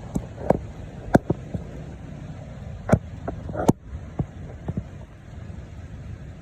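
Squall-line storm: about a dozen sharp, irregular taps and cracks, loudest about a second in and near the middle, over a steady low rumble.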